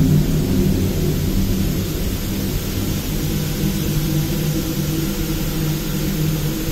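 Steady low rumble of machinery in an industrial boiler house, with a low droning hum running through it.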